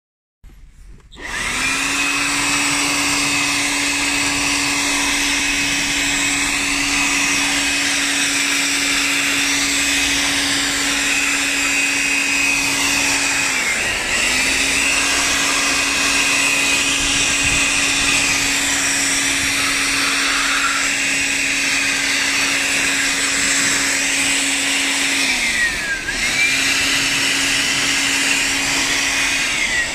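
BORT BSS-18Li cordless 18-volt blower running at full speed, a steady motor whine over rushing air, starting about a second in. Twice the motor briefly slows, its pitch sagging, then spins straight back up.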